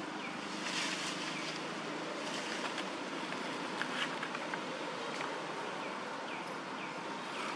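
Steady outdoor background hiss with soft, brief rustles and a few faint, short falling chirps near the end.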